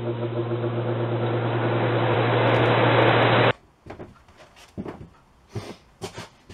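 Intro sound effect: a steady low drone under a rushing noise that swells louder and cuts off abruptly about three and a half seconds in. After it come a few faint knocks and handling sounds.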